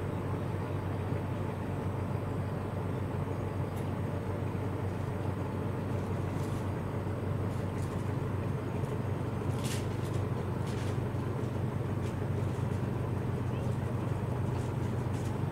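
Steady low hum and hiss of outdoor background noise, like distant traffic, with a few faint brief swishes.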